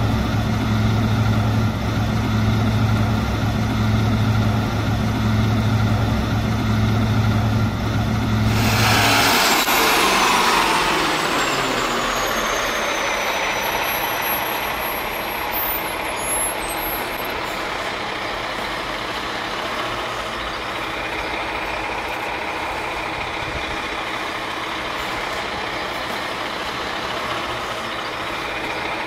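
Heavy truck sound: a diesel engine idling steadily, then about nine seconds in a sudden loud hiss like an air release. The engine note falls away under the hiss, and a steadier, quieter rumble carries on.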